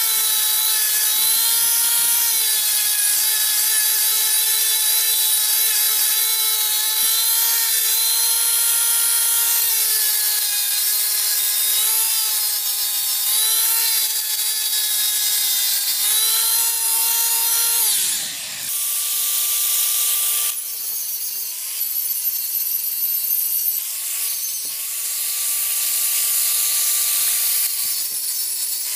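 An electric power tool running at speed with a steady whine, its pitch dipping briefly as it is pressed into the work. It winds down about eighteen seconds in, then runs again.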